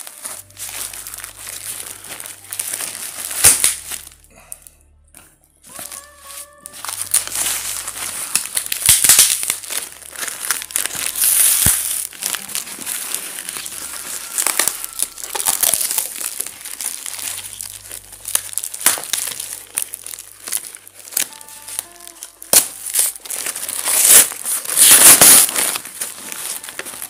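Brown wrapping paper and packing tape being torn and crumpled by hand as a parcel is unwrapped: irregular crackling and rustling with sharp rips, pausing briefly about four seconds in.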